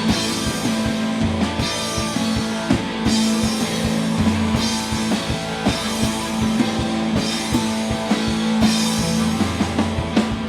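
Live indie rock band playing an instrumental passage between vocal lines: a drum kit with steady beats and recurring cymbal wash over sustained electric guitar chords, no singing.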